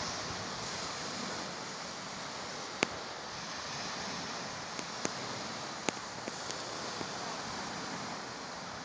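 Steady rushing of distant sea surf, with a handful of short sharp clicks, the loudest about three seconds in.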